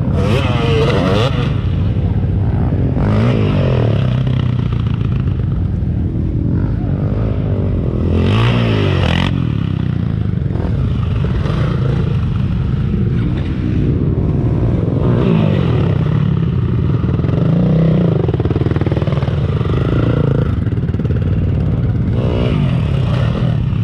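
Several sport quad bikes and enduro dirt bikes idling together, their engines revving up and down again and again, with a few louder surges of throttle.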